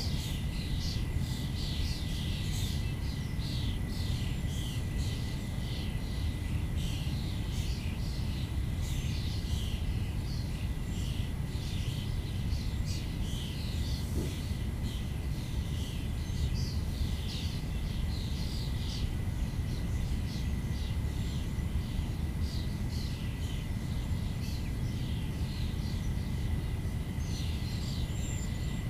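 Outdoor ambience: birds chirping over and over, with a thin, steady high tone and a low, steady rumble underneath.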